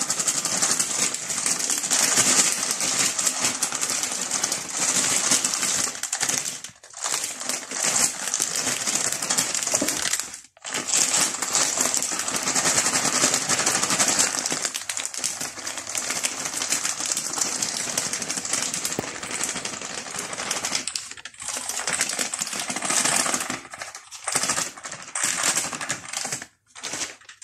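A plastic bag of flour crinkling and rustling steadily as it is shaken and emptied into a plastic canister, with a few short breaks near the end.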